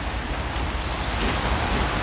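Steady hiss of light rain falling, with a few faint ticks of drops.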